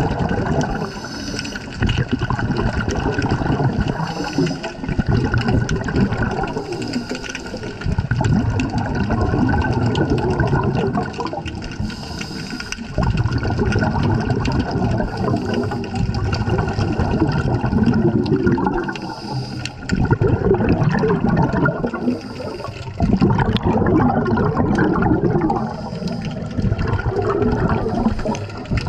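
Scuba regulator breathing heard underwater: loud bubbling bursts of exhaled air every few seconds, with a fainter higher hiss between them.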